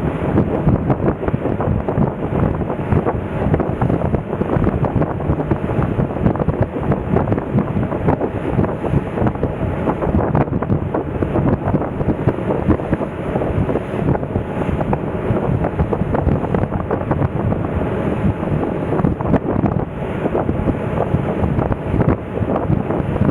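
Strong wind buffeting the microphone on the open deck of a moving ferry: loud, gusting wind noise that rises and falls rapidly.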